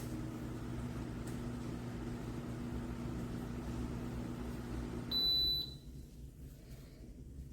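Electric table fan running with a steady low motor hum, then a single short electronic beep about five seconds in, after which the hum dies away as the fan is switched off.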